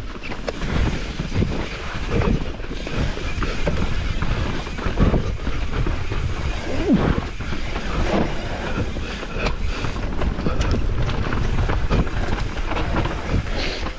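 Mountain bike running over a rough trail: steady tyre noise and rattling chain and frame, with knocks from bumps and wind on the camera microphone.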